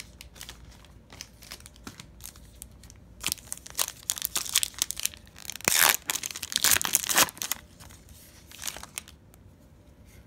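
Foil wrapper of a Panini Prizm football card pack being crinkled and torn open by hand, with scattered crackles and a few louder rips between about three and seven seconds in.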